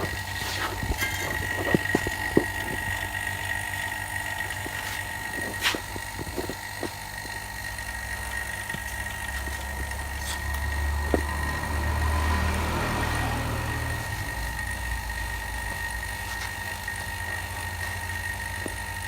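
Refrigeration vacuum pump running steadily with a low hum, evacuating the fridge's sealed system before it is charged with refrigerant. A few sharp clicks and knocks come in the first several seconds.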